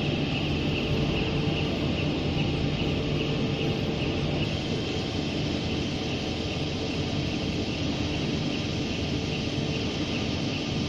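Low-voltage rail-powered transfer trolley (KPD-40T) running along its floor rails: a steady, even hum of drive motor and wheels.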